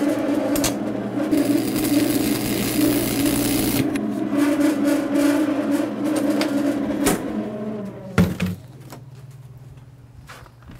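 Lincoln 225 stick welder humming steadily, with the crackling hiss of an arc for about two seconds near the start and scattered metallic clicks and taps. A loud knock comes about eight seconds in, after which it goes quieter, leaving a low hum.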